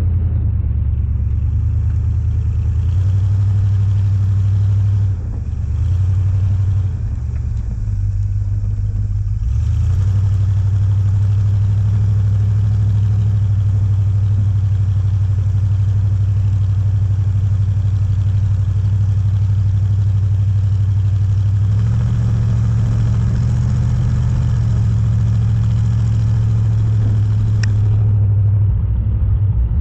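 Off-road vehicle engine running as it drives up a snow-covered road, a steady low drone whose pitch steps up and down a few times, with a brief dip in loudness about five seconds in.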